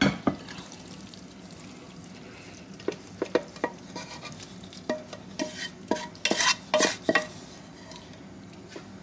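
Spoon stirring and scooping a thick bean-and-cheese enchilada filling, knocking and clinking against the pot several times, mostly in the middle of the stretch.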